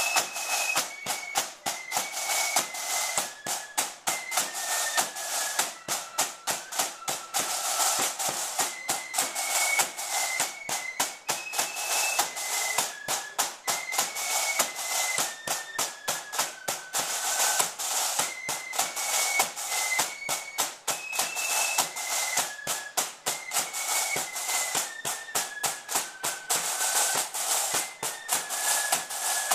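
Ulster marching flute band playing: a line of snare drums beating rapid, dense strokes under flutes carrying a single melody line in unison.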